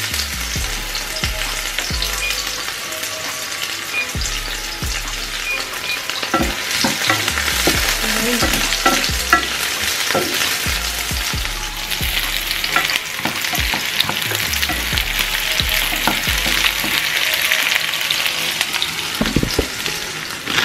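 Sliced red onion and garlic sizzling in oil in a nonstick frying pan, stirred with a wooden spoon that scrapes and knocks against the pan now and then.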